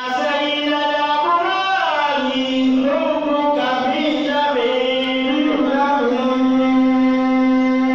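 A man singing solo into a handheld microphone, amplified through loudspeakers, in a chant-like style with long held notes that slide in pitch.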